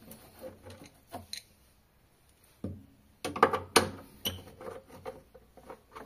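Metal clicks and knocks of a 10 mm nut driver working loose the screws that hold a washing machine's spin actuator to its drive unit. A few light ticks, a short quiet gap, then a cluster of sharper clicks about three to four seconds in.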